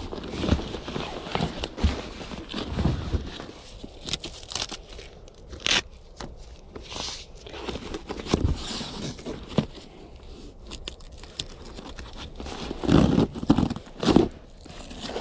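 Fabric rustling and crinkling with soft bumps as a rolled sleeping pad, stuff sacks and their webbing straps are handled and shifted on a carpeted load floor, with the loudest rustles near the end.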